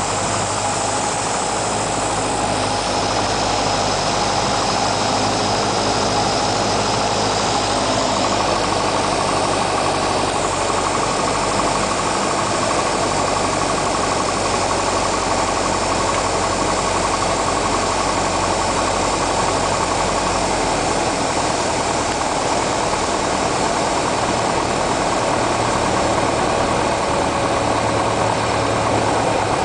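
Cessna 172's piston engine and propeller running steadily, with shifts in tone about a third of the way in and again about two-thirds in.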